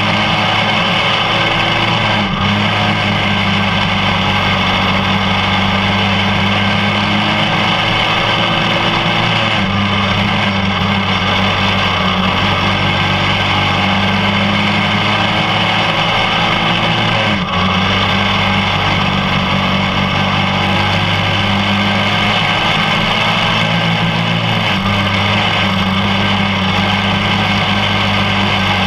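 Racing cage kart's engine running hard at racing speed, heard from on board with steady wind and track noise; its note dips briefly and picks up again four times, about every seven to eight seconds, as the driver eases off for the turns.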